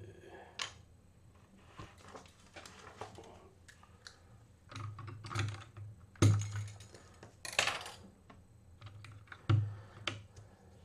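Keys being pressed on a GK61 mechanical keyboard with Kailh Box Pink clicky switches and PBT keycaps: scattered, irregular clicks, with two louder knocks in the second half.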